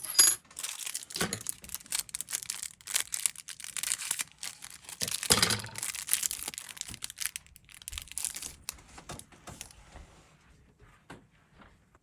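Plastic packaging crinkling and tearing as a small package is handled and opened, a dense run of crackles that thins out near the end.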